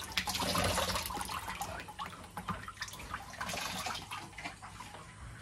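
Water trickling and dripping from a woven basket of grated sago pith into a tub of starchy water as the starch is washed out. The splashing is busiest in the first second and a half, then thins out.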